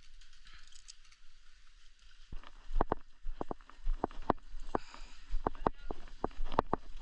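A run of irregular sharp knocks and clicks, some in quick pairs, starting a little over two seconds in after a quiet stretch.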